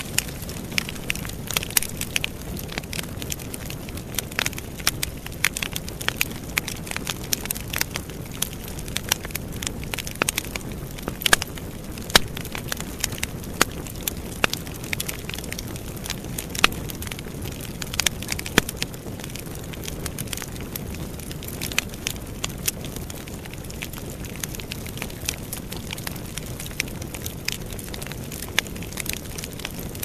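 Wood fire burning in a fireplace: a steady low rush of flame with frequent irregular crackles and pops from the burning split logs, a few of them louder, sharper snaps.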